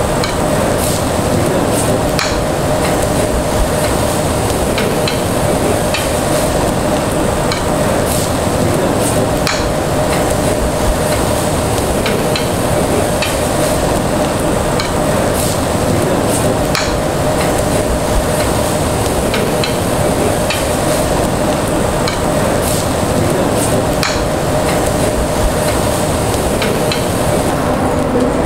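Meat sizzling steadily on a hot perforated stainless steel Korean BBQ grill plate, with scattered clicks of metal tongs against the plate as the pieces are turned. A steady hum sits underneath.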